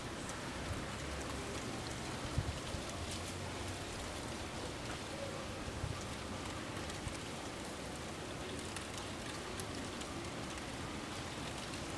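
Steady wind noise, an even hiss much like rain, with two short low thumps about two and a half and six seconds in.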